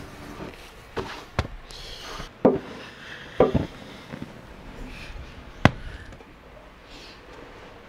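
Hand tools knocking on wood during koto making: about six sharp, irregular knocks, the sharpest about two-thirds of the way in, with a short scraping hiss near the second knock.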